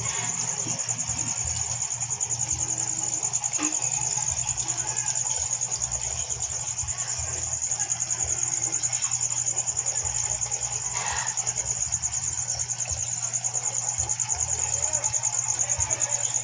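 A cricket trilling: one high-pitched, rapidly pulsing trill that never stops, over a low steady hum.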